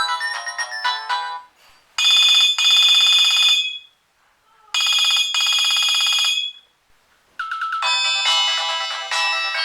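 Nokia 3220 ringtones played through a Nokia N73's loudspeaker. One melody ends about a second in, then come two long bursts of rapidly repeating tones a second apart, and a new melody starts near the end.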